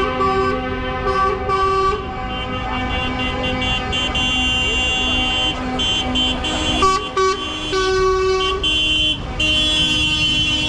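Several vehicle horns honking over one another at different pitches, some held for seconds and some short, over a steady low engine rumble.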